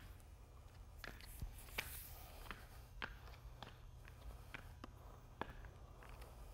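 Faint, irregular clicks and scrapes as a worker in spiked shoes steps across wet MMA resin on concrete and drags a notched squeegee through it, over a steady low hum.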